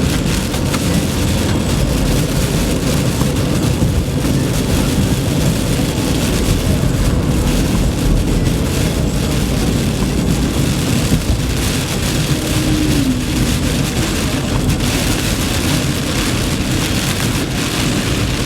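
Heavy rain on a moving car, over steady road and tyre noise. A brief falling squeak sounds about two-thirds of the way in.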